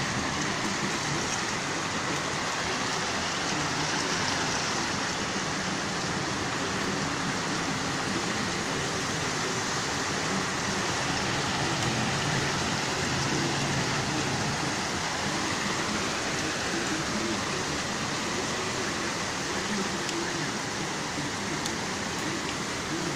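Heavy rain pouring down in a steady downpour, a dense even hiss that does not let up.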